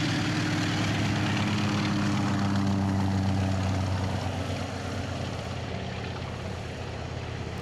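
Antonov An-2 biplane's nine-cylinder radial engine at takeoff power with the propeller running, a steady drone that grows fainter over the last few seconds as the plane lifts off and climbs away.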